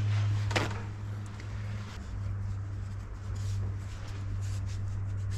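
A paper towel rustling and crinkling as hands press it around a shaft on a metal gearbox housing, with a single click about half a second in. A steady low hum runs underneath.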